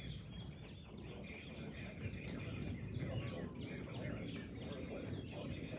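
Birds chirping over a steady low background noise.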